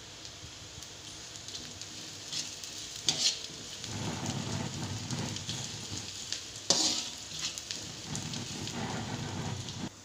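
Sliced shallots and garlic sizzling in a wok while being stir-fried, with a metal spatula scraping and clinking against the pan. The sharpest scrapes come about three seconds in and again near seven seconds, and the sizzle grows louder from about four seconds.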